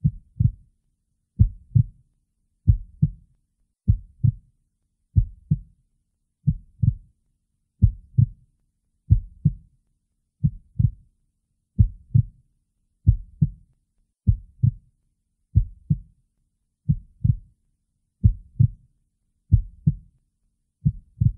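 Slow heartbeat: paired low thumps, lub-dub, repeating about every 1.3 seconds with silence between.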